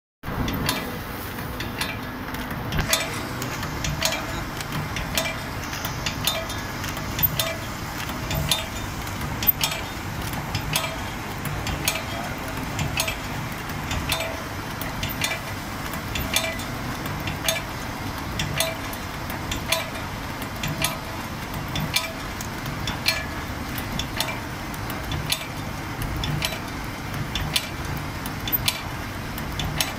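Automatic camphor tablet press running, driven by a 1 HP electric motor: a steady low hum under a regular clack of the punch stamping tablets, about one sharp knock a second with lighter clicks between.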